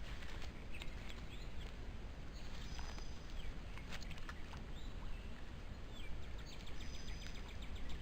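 Outdoor ambience of steady background hiss, with birds chirping now and then in short, high, bending calls.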